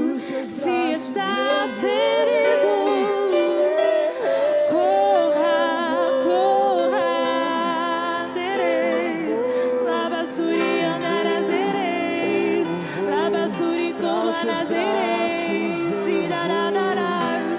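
Acoustic worship music: a wavering sung melody over sustained instrumental accompaniment.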